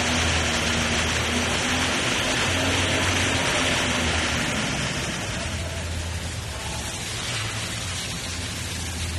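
Diesel engine of a Toyota forklift in a runaway, racing out of control and still running with the key removed; a loud, steady roar over a low drone that eases somewhat a little past halfway. The owners think a blown head gasket is the likely cause.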